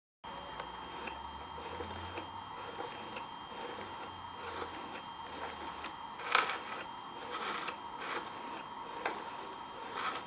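Hand-cranked paper automaton running: its cardboard crank, cams and followers rub and click in a loose rhythm as the figures' heads bob and their mouths open and shut, with one sharper click about six seconds in.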